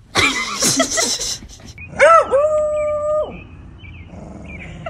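A dog howls once: a single note that swoops up and then holds steady for about a second. It follows a short, noisy burst of sound at the start.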